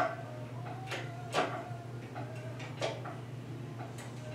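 Hand-pumped hydraulic engine hoist raising a jet engine: a click with a short creak on each pump stroke, about every second and a half.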